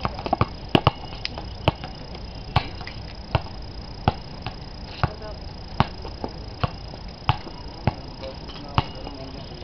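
A basketball being dribbled on an outdoor concrete court: sharp bounces, several close together in the first two seconds, then an even dribble a little faster than one a second. A thin, steady high-pitched tone runs underneath.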